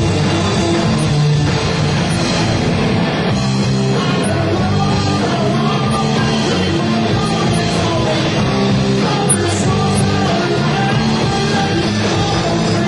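Rock band playing live and loud, with electric guitars and a drum kit.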